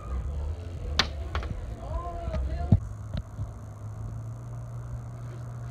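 A few sharp knocks, the loudest about a second in and just before a change of scene, over rumbling wind on the phone microphone. After that a steady low hum.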